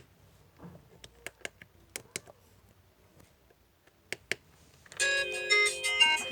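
Several sharp clicks, then about five seconds in the LG MG160a mobile phone's alarm tone starts playing an electronic melody of several notes at once.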